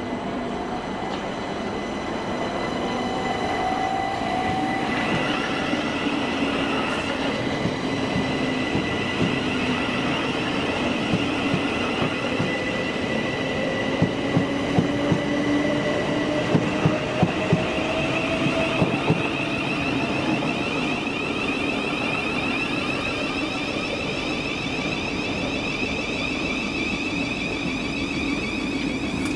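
Thameslink Class 700 electric multiple unit running through the station. Its electric whine glides up in pitch partway through, and its wheels knock sharply several times over rail joints and points in the middle of the passage.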